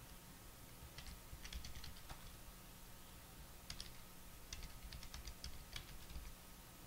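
Faint typing on a computer keyboard: short runs of keystrokes, about a second in and again between about four and six seconds in.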